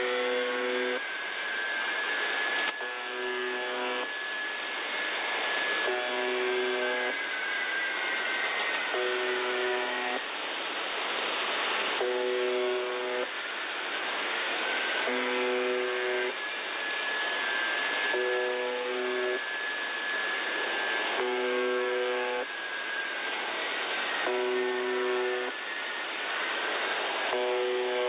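The Buzzer (UVB-76) shortwave station on 4625 kHz received in upper sideband: a rough, low buzz about a second long repeats roughly every three seconds over steady radio hiss. A thin whistling tone wavers and slowly glides up and down above it.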